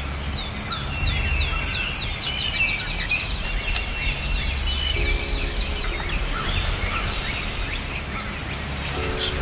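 Songbirds singing in bare spring woods at dusk: a series of high chirped notes that speeds up into a trill over the first few seconds, then scattered calls, over a low steady hum.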